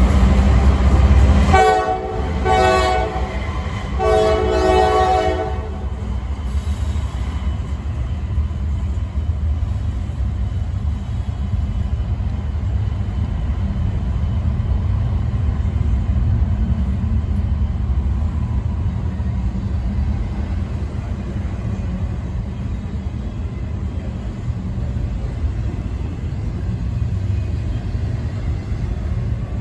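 Freight train cars rolling past with a steady low rumble. About two seconds in, a diesel locomotive horn sounds three blasts, the last one the longest.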